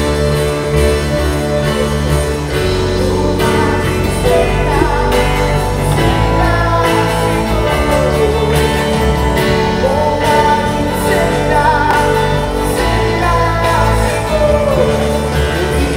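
Christian worship music from a church service: a band playing, with a singing voice coming in a few seconds in.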